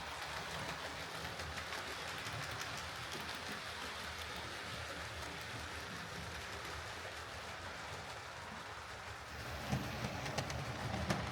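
OO gauge model steam locomotive running on track: a steady whirring rumble of motor and wheels on rail, with a run of sharp clicks near the end as it passes over track joints or points.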